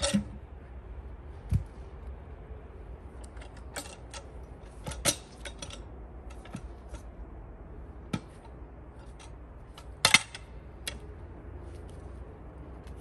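Scattered knocks and clunks of boots and a metal cant hook on logs as a man moves about on a log pile. The loudest knock comes about ten seconds in.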